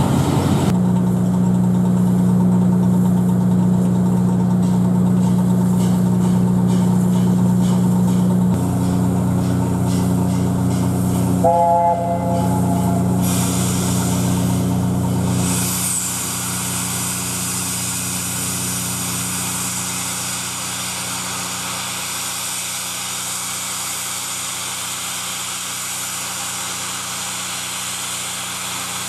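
LNER A4 steam locomotive standing at a platform with steam hissing from around its cylinders; the hiss grows stronger and stays steady from about halfway through. About twelve seconds in comes a brief three-note chord, a short toot on the A4's chime whistle, over a steady low hum that stops about halfway through.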